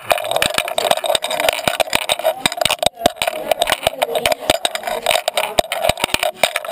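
Collar-mounted GoPro Hero2 in its housing, knocking and rubbing against the dog's collar as the dog moves about: a dense, irregular clatter of clicks over a steady scraping noise.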